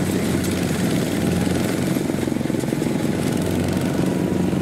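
Single-cylinder diesel engine of a two-wheel walking tractor running steadily, its chugging even and unbroken.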